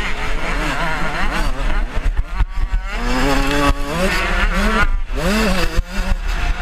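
A 125cc two-stroke motocross bike engine revving hard under acceleration. Its pitch climbs in repeated sweeps and drops back sharply between them, with brief cuts in the sound as the throttle is rolled off or a gear is changed.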